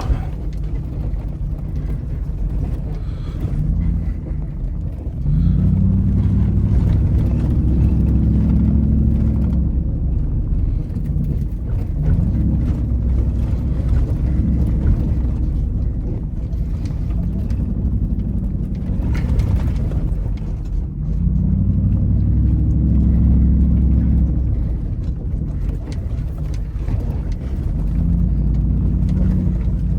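Hemi V8 of a third-generation Dodge Ram pickup heard from inside the cab, rising and falling in revs several times as it accelerates and eases off over a rough dirt road, with the steady noise of the truck moving and a few sharp knocks.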